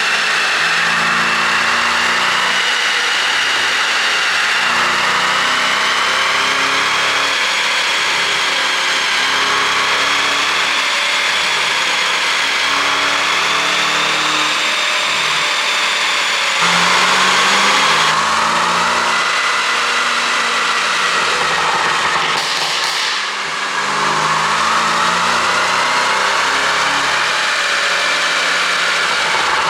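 Mercedes-Benz S560's 4.0-litre twin-turbo V8 running on an ECU tune, a steady engine note with a slightly wavering pitch. The sound changes abruptly about halfway through and again around three-quarters of the way.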